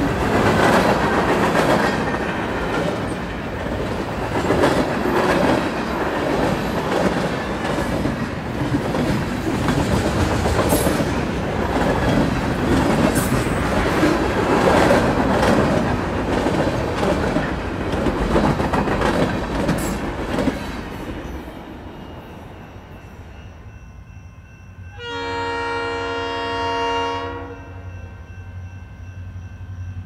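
Freight cars rolling past with a steady rumble and clatter of steel wheels on the rails, fading out about two-thirds of the way through. Near the end, a distant Leslie RS3L three-chime air horn on an approaching locomotive sounds one chord of about two and a half seconds.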